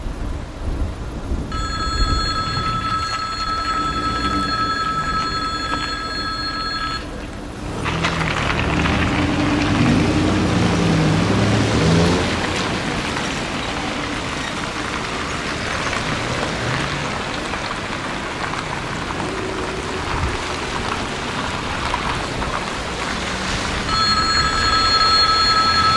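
Level-crossing electric warning bell ringing steadily for about five seconds, then stopping. Cars then drive over the crossing on a wet road, with tyre hiss and engine noise. Near the end the bell starts ringing again as the crossing signal warns of another approaching train.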